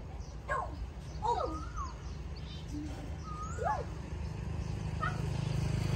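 Birds calling: a few short swooping notes spaced a second or two apart, over a steady low rumble.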